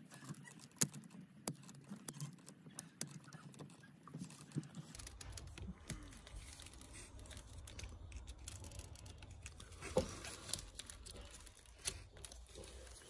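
Small plastic clicks and taps from an ECU wiring-harness connector being pried apart with a pick, its latches and terminal retainer being released, over the light rustle of nitrile gloves handling it. A few sharper clicks stand out, the loudest about ten seconds in.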